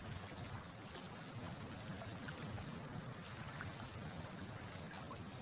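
Steady wash of choppy sea water.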